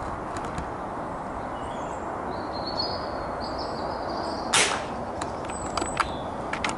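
An Air Arms .22 pre-charged pneumatic air rifle fires a single shot about four and a half seconds in, followed by a few light clicks, over a steady background hiss.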